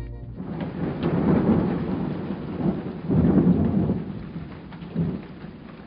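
Thunderstorm: rain falling with rolling thunder, the rumbles swelling about a second in and again around three seconds, then dying away.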